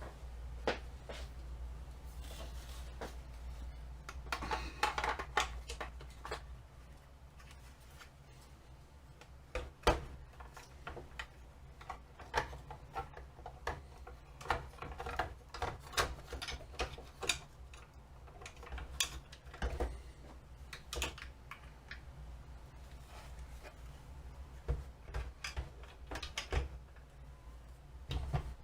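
Scattered sharp clicks and knocks of small hard parts and tools being handled and set down on a workbench, over a steady low hum. The loudest knock comes about ten seconds in.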